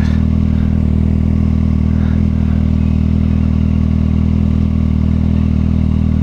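Kawasaki ZX-6R motorcycle's inline-four engine idling steadily, close to the microphone.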